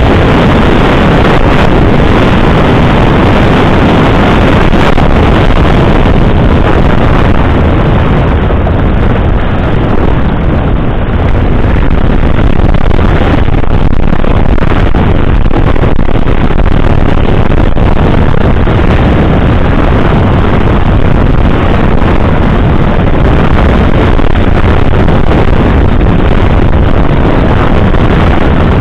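Yamaha XT660Z Ténéré's single-cylinder engine running steadily under way on a gravel track, mixed with heavy wind buffeting on the microphone.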